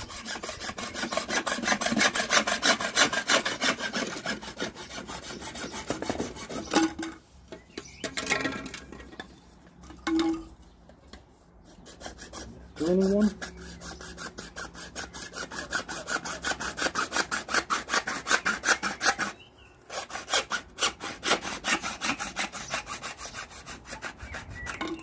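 Hacksaw cutting through plastic waste pipe in quick, even back-and-forth strokes, in three runs with short pauses between.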